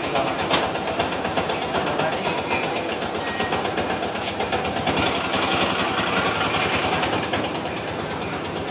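Steady street traffic noise: vehicle engines running, with small clicks and knocks here and there.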